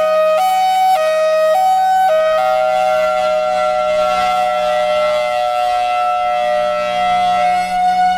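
1976 Federal Signal Thunderbolt 1003 outdoor warning siren sounding its hi-lo signal, which the enthusiasts call a 'drunk' hi-lo: two pitches alternating about every half second. About two seconds in it switches to a steady alert tone.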